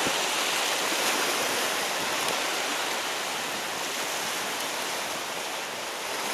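Sea surf washing over shore rocks: a steady rush of water with no distinct breaks.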